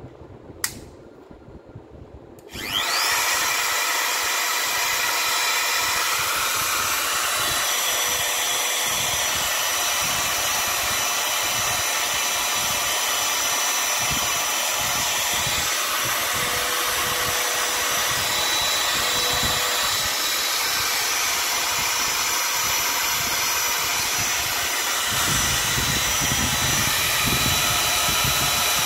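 Makita RT0700 compact trimmer's brushed motor (armature and field) in a test run after repair: a sharp click, then about two and a half seconds in it spins up and runs at a steady high speed with a thin, constant whine.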